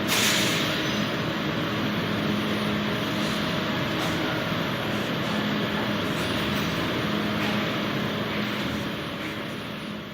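Meat-processing machinery running steadily: an even mechanical noise with a low hum, a brief louder hiss at the start, fading out near the end.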